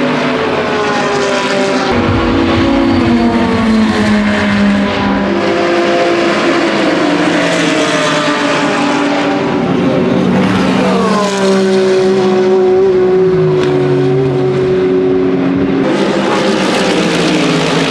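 Several endurance race cars' engines running hard as they pass on the circuit, their notes overlapping. The pitches glide and step up and down with gear changes, with one note falling sharply about eleven seconds in as a car goes by.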